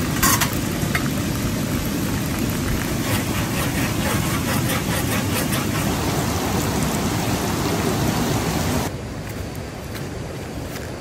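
Steady rushing water noise that cuts off suddenly about nine seconds in, leaving a quieter outdoor background. Just after the start there is one short, sharp sound.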